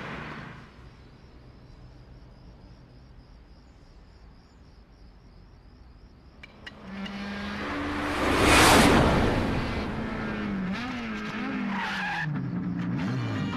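Ferrari sports car arriving fast: after a quiet stretch, the engine and tyre noise build to a loud rush about eight or nine seconds in, then tyres squeal and the engine note wavers as it pulls up.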